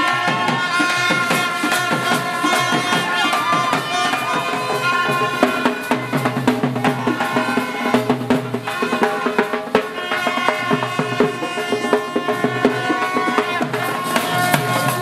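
Music with a steady drum-kit beat under sustained melodic notes.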